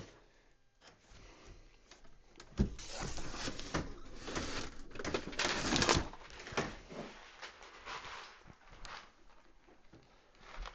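Rummaging and handling noises: a sharp knock about two and a half seconds in, then a few seconds of dense rustling and scraping, dying down to scattered light clicks and shuffles.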